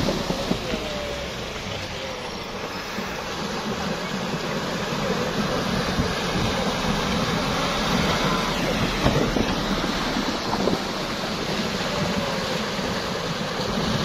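Off-road vehicles driving through a shallow river, their wheels churning and splashing the water, heard as a steady rush of water mixed with engine noise.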